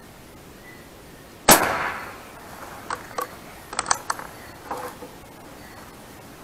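A Beeman QB Chief .22 PCP air rifle fires once, a sharp report about a second and a half in. Several sharp metallic clicks follow as the bolt is worked for the next shot.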